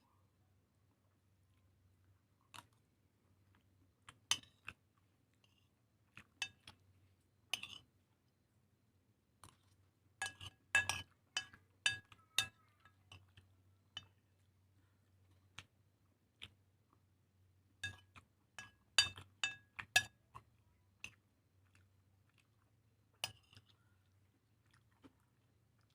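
A person eating rica-rica clams and seblak: chewing with sharp clicks and ringing clinks of hard things knocking together, bunched into two busy runs, one about ten seconds in and one about eighteen seconds in.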